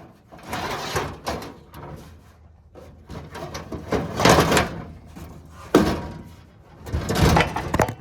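Heavy metal parts of a parking lot light fixture being handled, with a few loud clanks and scrapes: a longer scrape about four seconds in and sharp knocks near the end.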